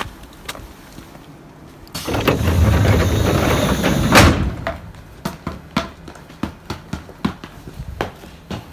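A train's sliding door: a couple of seconds of hissing, rumbling movement that ends in a sharp knock about four seconds in, followed by scattered light clicks and knocks.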